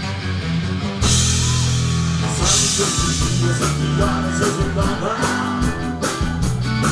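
Live rock band playing: electric guitar and bass over a drum kit, the full band coming in louder with cymbals about a second in, with a male lead vocal.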